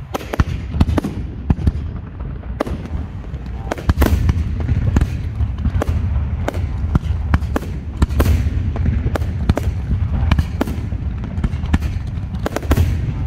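A professional fireworks display: a rapid, irregular series of sharp bangs from aerial shells and launches, over a continuous low rumble.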